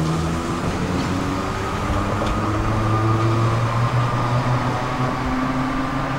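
A historic electric tram running away along its track, its motors and running gear giving a steady hum in several tones that drift slightly in pitch, over rumbling rail noise.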